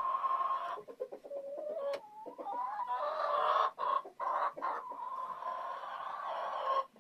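Farm animal calling in a barn: long drawn-out calls, with shorter broken calls between them.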